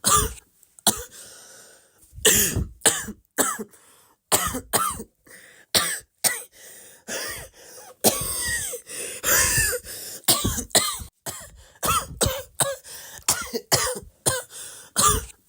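Coughing over and over, short sharp coughs about two a second with brief gaps, and a longer unbroken run of hacking coughs about eight seconds in.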